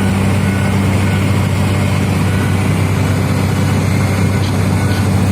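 Heavy diesel engine of mining machinery running steadily with a deep, even hum.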